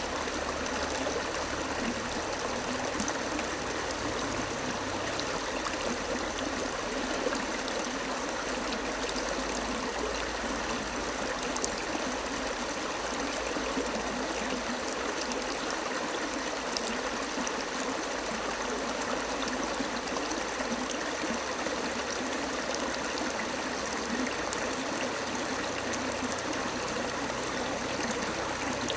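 Flowing stream water, a steady babbling and trickling.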